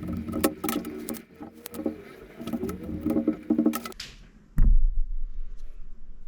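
Fine-tipped scalpel ticking and scratching through leather as a small slit is cut. The sound stops abruptly about four seconds in, and a single loud thump follows soon after.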